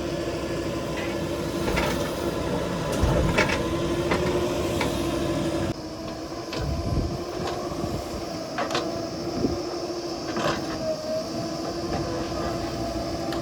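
JCB 3DX backhoe loader's diesel engine running with a steady hum, with scattered short knocks and clanks from the machine at work. The sound drops abruptly in loudness about halfway through.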